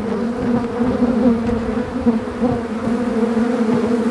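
Many honeybees buzzing around an opened hive during an inspection: a loud, steady, even hum of wingbeats close to the microphone.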